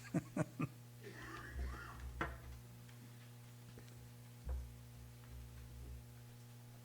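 Faint clicks, knocks and low thumps of someone moving about at the pulpit microphone, over a steady low electrical hum from the sound system.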